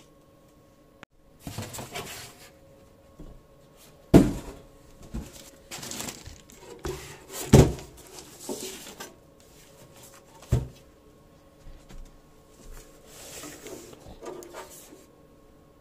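Hardware parts of a computer case being handled: a series of sharp knocks and clunks, three of them loudest, with rustling in between.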